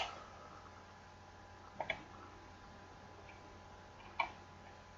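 Computer mouse button clicks: one click at the start, a quick double click a little under two seconds in, and another single click about four seconds in.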